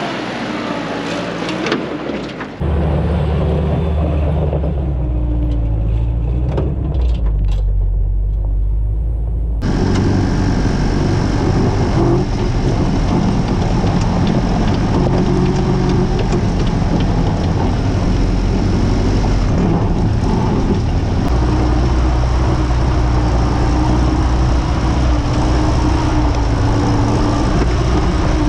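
Willys CJ-2A Jeep's engine running steadily at low speed under load as it crawls over rocky ground on ATV tires, heard close up from beneath the vehicle. Quieter at first, then abruptly much louder and closer about two and a half seconds in.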